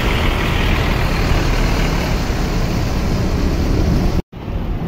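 Hino coach's rear-mounted diesel engine running close by as the bus pulls away, a steady heavy rumble with hiss; it breaks off suddenly near the end.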